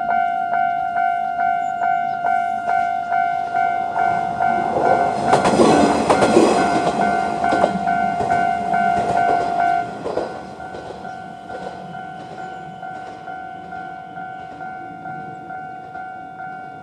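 Japanese level-crossing electronic warning bells ringing fast and steadily while a Kanto Railway KiHa 5010-series diesel railcar passes over the crossing, loudest about six seconds in. From about ten seconds in the bells ring on more quietly.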